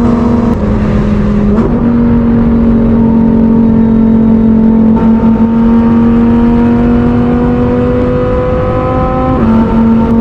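Lamborghini Huracán STO's 5.2-litre V10 engine running at fairly steady revs, loud, its exhaust note holding one pitch. The pitch dips briefly less than a second in, steps back up, then rises slowly in the second half before shifting again near the end.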